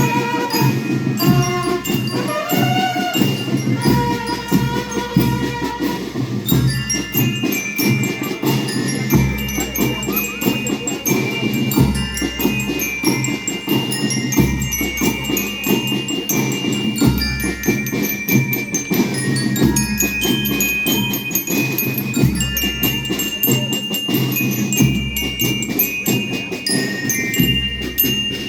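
School rhythm band playing: bell lyres carry a stepping melody over a steady beat of drums.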